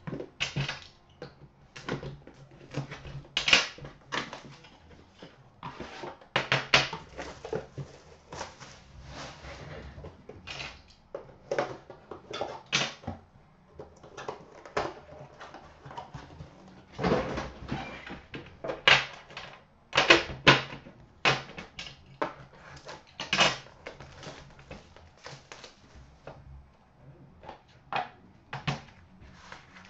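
Irregular clicks, knocks and rustles of hands opening and handling hockey card packaging: a box being shaken and unsealed, and a black metal tin and its inner card case being set down and opened on a glass counter.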